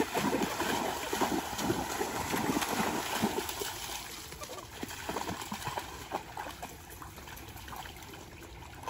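Dogs running and splashing through shallow muddy water, a dense churning of splashes that eases after about four seconds into the lighter, sparser sloshing of the dogs wading.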